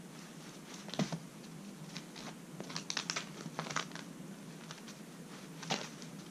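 A kitten's claws and paws scratching and rustling on a tatami mat as it pounces on and grabs a fuzzy cat-teaser toy dragged across it: short scrapes and taps, one about a second in, a quick cluster in the middle and another near the end.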